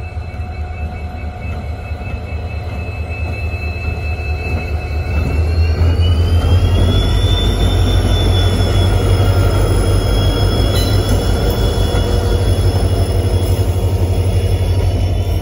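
WDG4D diesel locomotive passing close by at the head of a passenger train, a deep rumble that builds to its loudest about six seconds in, followed by the coaches rolling past. A high steady whine runs throughout and rises in pitch between about five and seven seconds in.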